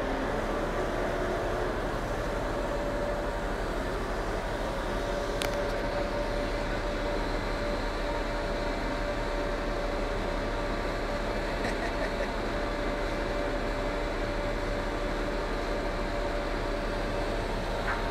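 Steady mechanical drone of running machinery, an even rushing noise with a constant hum, broken by one sharp click about five seconds in.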